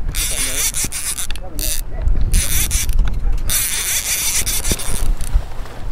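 A conventional fishing reel buzzing mechanically as it is cranked against a hooked snook. The buzz comes in four stretches of about half a second to a second each, with short breaks between them, and fades near the end.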